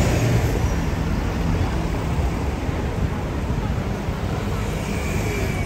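Steady outdoor city ambience: a low rumble of road traffic.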